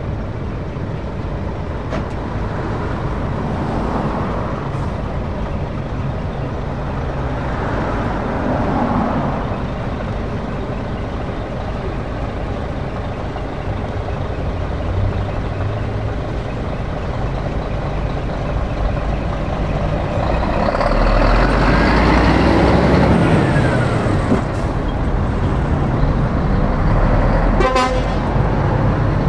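Scania rigid truck's diesel engine running as the truck drives slowly past, growing louder as it nears and loudest as it goes by about two-thirds through, then pulling away.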